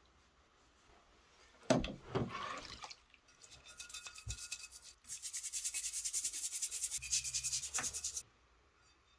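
Rapid back-and-forth scrubbing strokes, several a second, getting going about three seconds in and cutting off suddenly near the end, after a knock and a moment of handling.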